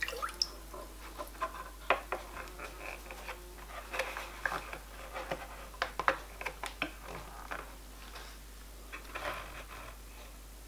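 Hands twisting a length of wire around a steel rod resting across a plastic bucket, heard as scattered small clicks, taps and rustles. It is quieter in the last couple of seconds.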